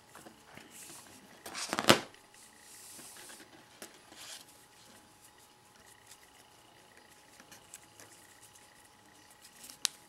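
Nylon paracord rustling and sliding through fingers as a slip knot is tied and pulled snug, with the loudest brush of cord about two seconds in and fainter handling after.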